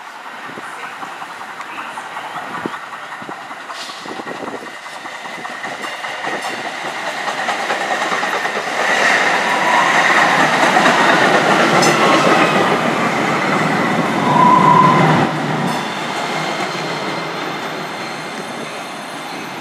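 DART light rail train pulling into the station: wheels on the rails growing louder as it nears, with a steady high squeal and a falling electric whine as it slows alongside the platform. A short tone sounds near the loudest point, and then the noise eases as the train comes to rest.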